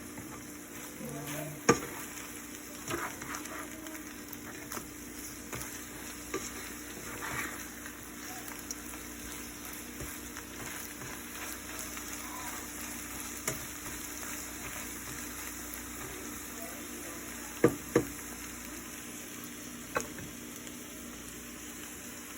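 Food sizzling steadily in a frying pan, with a few sharp knocks, one near the start and a few near the end.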